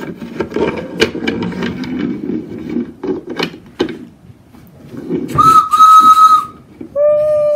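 A wooden toy train rattling and clacking as it is pushed by hand along a wooden track, followed by a train-whistle sound effect: a steady high whistle for about a second, then a lower drawn-out whistle tone starting near the end.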